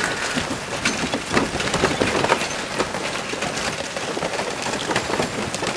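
Cycle rickshaw rattling and clattering as it is ridden along a street, with a steady rush of road noise and frequent small knocks throughout.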